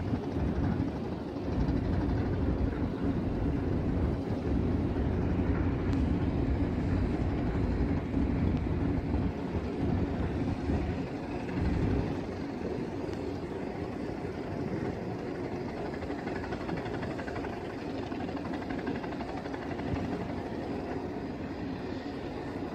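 Steady low rumble of a large oil tanker under way, with wind buffeting the microphone on deck. It drops a little in level about halfway through.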